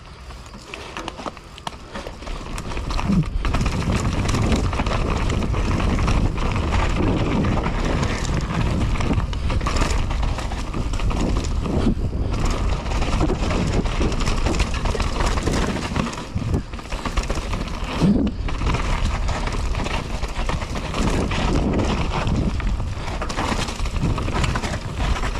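Mountain bike descending a downhill trail: tyres running over dirt and the bike rattling and knocking over bumps, under heavy wind rush on the microphone, starting about two seconds in.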